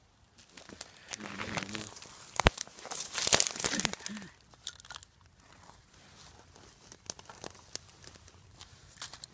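Footsteps crunching through dry leaves, twigs and brush, with one sharp crack about two and a half seconds in. After that come lighter, scattered crackles of dry twigs and grass.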